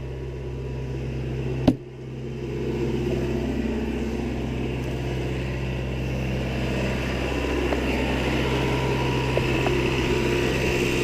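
Steady low rumble and hum, with one sharp knock nearly two seconds in.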